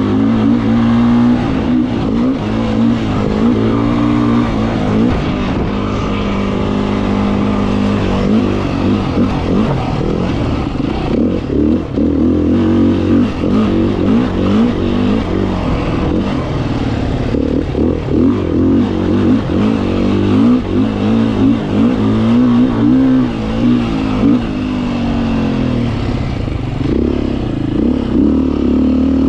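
A 2018 Beta 500RR's single-cylinder four-stroke engine runs under way, its revs rising and falling over and over as the throttle opens and closes.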